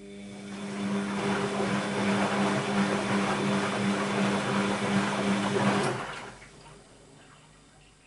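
Bosch WAB28220 washing machine tumbling a wet load: the drum motor hums steadily while water and laundry slosh in the drum. It builds up over the first second and stops about six seconds in, one turn of the wash action.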